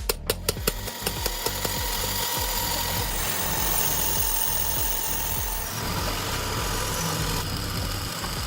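Rapid, regular clicking, about five a second, fading out in the first second or so, then a steady mechanical running noise with a low hum.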